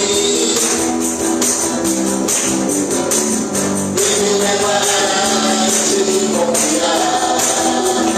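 Live church worship band playing an upbeat praise song, with singing and a steadily shaken tambourine.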